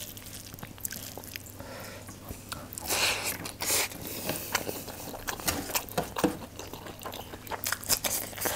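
Eating rice and chicken korma by hand: fingers squishing and mixing rice into creamy gravy on a steel plate, then chewing a mouthful with wet mouth smacks toward the end.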